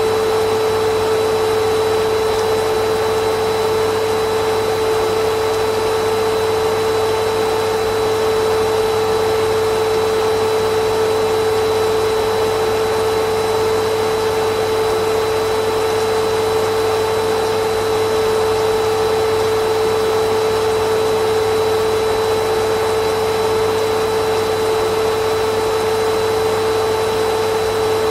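Vacuum cleaner motor running steadily with a constant high-pitched whine over a rushing hiss, unchanging in pitch and level.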